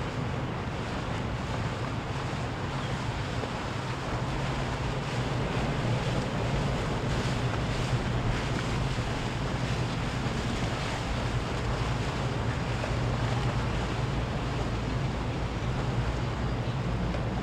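Motorboat engines running on the water, a steady low drone that grows a little louder midway, with wind buffeting the microphone and waves washing.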